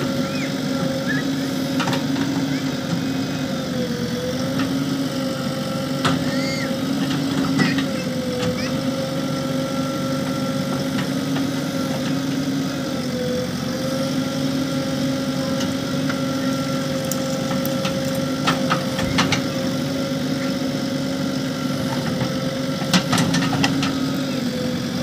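JCB backhoe loader's diesel engine running steadily while the hydraulic backhoe digs, its pitch sagging briefly three times as the arm takes load. Short sharp knocks and clatter come from the bucket scraping the rock face and loose rock falling, most of them in the second half.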